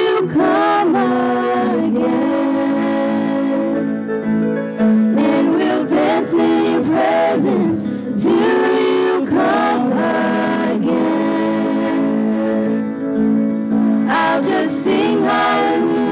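Small gospel vocal group singing a worship song in harmony, holding long notes, with grand piano accompaniment.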